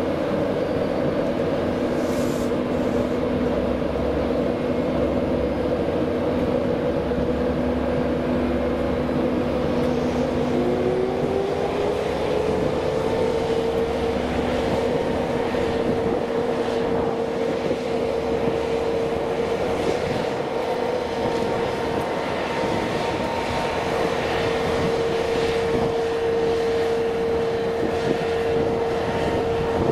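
Hitachi IEP train approaching and running past, giving a steady whine with a low rumble beneath it; one note of the whine rises about a third of the way through and then holds, while the rumble fades away.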